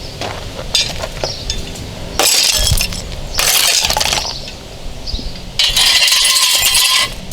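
Metal tools clinking and rattling in three loud bursts of clatter, each about one to two seconds long.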